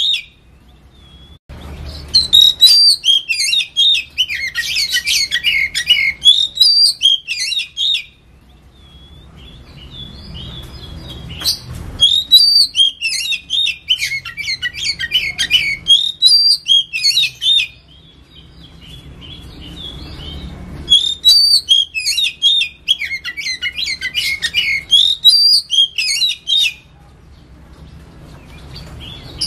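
Oriental magpie-robin (kacer) singing in three long phrases of rapid, varied, high whistled notes, each about six seconds. Short pauses between the phrases hold only a few faint soft notes.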